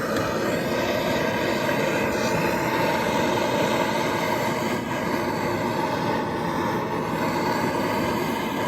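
Propane torch burning with a steady rushing roar, warming a frozen bulldozer starter.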